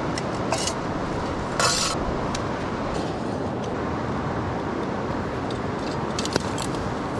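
Steady rush of a cascading river with rain falling, and a few light clinks and taps over it. A brief louder rustle comes about one and a half seconds in.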